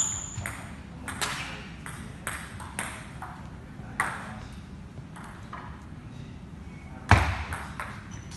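Table tennis ball clicking off rubber paddles and the table, one sharp knock after another with a short echo of the hall behind each, and a louder thud about seven seconds in.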